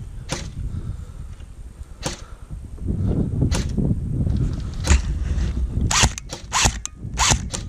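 Airsoft gun shots: a few single sharp cracks spaced a second or more apart, then a run of about six in quick succession near the end, over a low rumble.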